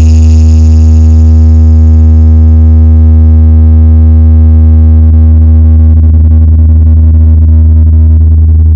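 A very loud synthesized bass tone, held steady with a stack of overtones above it, played as a bass showpiece in a DJ sound-check track to show off the sound system's low end.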